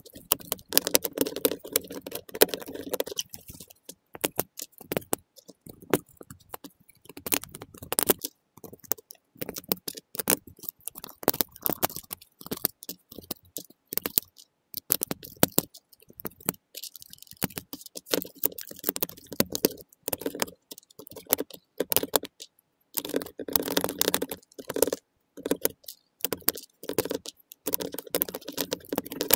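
LEGO Technic plastic parts clicking as pins and beams are pressed together and handled, in many irregular sharp clicks with some rattling and scraping of pieces.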